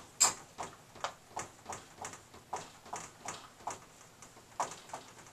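Dry-erase marker writing on a whiteboard: a run of short squeaks and taps, about three a second, as the letters are drawn.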